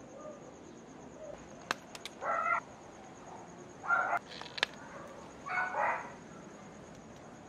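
An animal calling three times, each call short and about a second and a half apart, with a few small sharp clicks in between.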